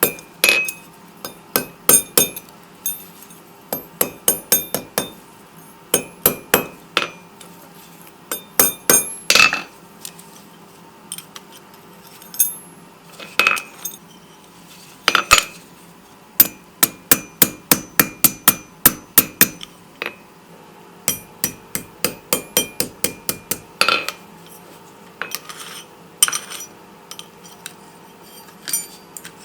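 Rounding hammer striking a small steel bar on an anvil in quick runs of light blows, several strikes a second, with short pauses between runs. Each blow has a bright metallic ring.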